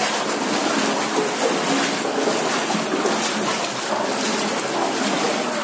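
Water splashing and sloshing steadily as someone wades through the flowing water of Hezekiah's Tunnel, the rock-cut water channel under the City of David.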